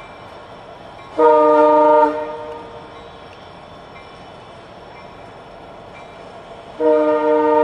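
Nathan K3L air horn on a CN SD75I locomotive sounding a short blast and then starting a long one near the end. The horn is ailing: its second chime is dead and the first sometimes overblows, which gives it a steam-whistle-like sound.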